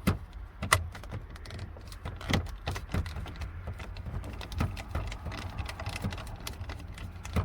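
Irregular light clicks and taps of a T25 screwdriver working the top screw out of a plastic steering column cover, with a few sharper knocks, over a low steady hum.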